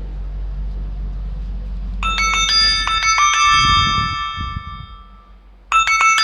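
An itel A36 phone ringing with its SIM 1 ringtone: a tune of bright, bell-like chime notes that starts about two seconds in, fades away, then starts again near the end. A low steady hum lies under it.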